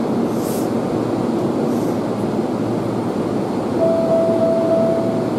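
Steady running noise of a standing Seibu 2000 series electric train at a platform. A steady single-pitched tone comes in about four seconds in.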